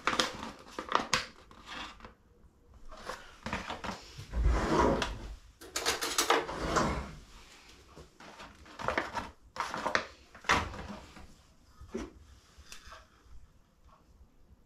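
A paper packet of bread mix crinkling and rustling as it is handled and emptied into a bowl, with scattered short knocks and taps.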